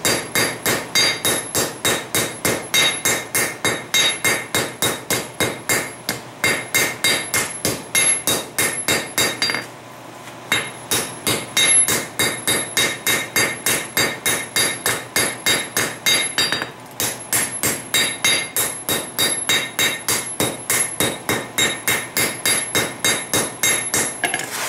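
Hand hammer forging a red-hot ball peen hammer head on an anvil: a fast, steady run of blows, about four a second, each with a bright metallic ring. The hammering stops briefly twice, about ten and seventeen seconds in.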